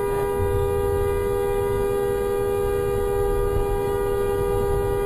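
A car horn held down in one long, steady blast, two close pitches sounding together over low road rumble.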